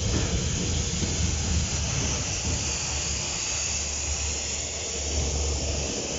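Railhead treatment train passing: the high-pressure water jets cleaning the rails give a steady hiss over the rumble of the tank wagons. Near the end the low engine note of the trailing Class 66 diesel locomotive grows louder.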